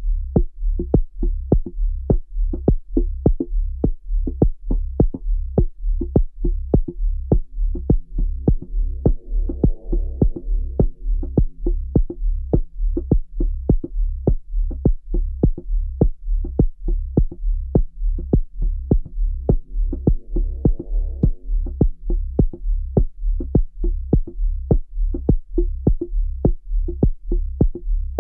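Elektron Digitone FM synthesizer playing an electronic pattern: steady drum-machine hits about two to three a second over a sustained low bass drone. A pitched, layered pad swells up and fades twice, about 8 seconds in and again about 20 seconds in.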